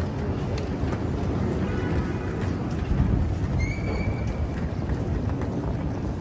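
City street noise: a steady low rumble of traffic, with a brief high squeal a little past halfway through.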